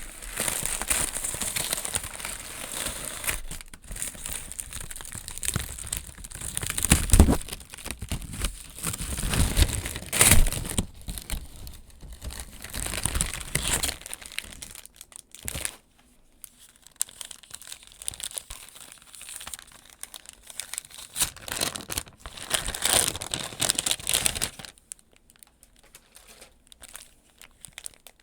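Hands crinkling and unwrapping packaging, with tearing here and there. There are two louder handling knocks about seven and ten seconds in. The rustling thins out after about fifteen seconds and stops a few seconds before the end.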